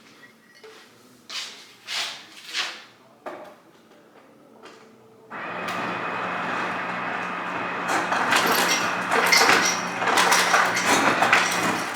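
A few knocks and light clinks of kitchenware being handled. About five seconds in, a small kitchen appliance starts running with a steady motor hum and whir, with more clattering over it.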